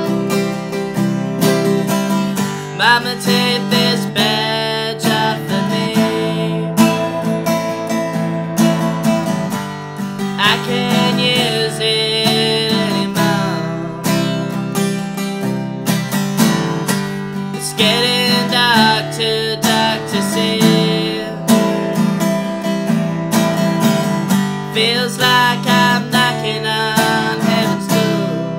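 Acoustic guitar strummed in a steady rhythm, with a man singing four long phrases over it, about one every seven seconds.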